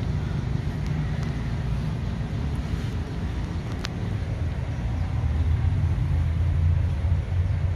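Isuzu 6HK1 mechanically injected turbo-diesel inline-six idling steadily. There is one short sharp click about four seconds in.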